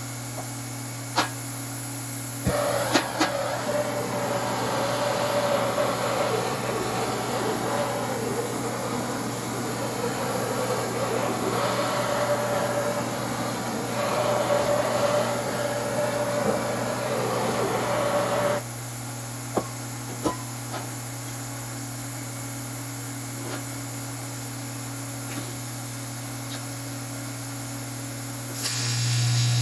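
Steady electrical hum of workshop metalworking equipment. A scratchy, crackling noise starts about two seconds in and stops about eighteen seconds in, and a louder buzz starts near the end.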